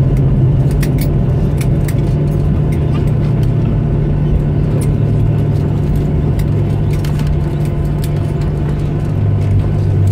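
Cabin noise of a Boeing 737-800 rolling on the ground just after landing: a steady low hum of engines and wheels, with many short sharp rattles and knocks through the cabin.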